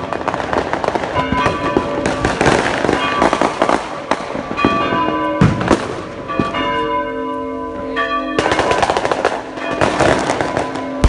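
Fireworks crackling and popping in rapid, dense bursts, with a louder bang about five and a half seconds in, while church bells ring. The bells stand out clearly for about two seconds past the middle before the crackling comes back.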